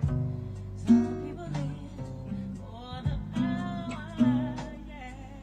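Acoustic guitar strummed in chords, accompanying a singing voice that comes in about three seconds in.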